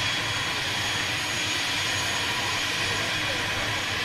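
Steady rushing hiss with a constant high whine from a parked ATR 72-600 turboprop's turbine engine running on the ground.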